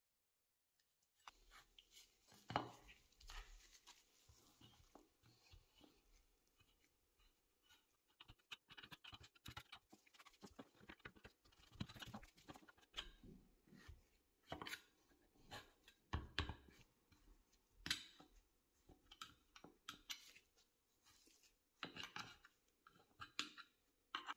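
Faint rustling, scratching and small clicks of fluffy white fibre wadding being pulled apart and packed into a small metal spirit-stove burner cup around its tubes, and pressed down with a plastic tool.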